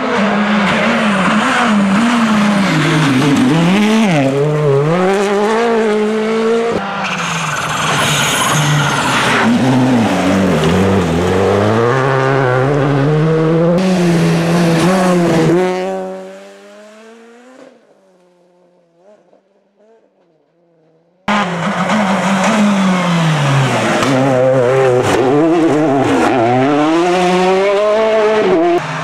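Rally cars at full attack on a gravel stage, one after another, their engines revving hard and rising and falling in pitch through gear changes, with tyre and gravel noise as they slide through the corner. About two-thirds through, the sound fades to near silence for a few seconds, then another car cuts in loud.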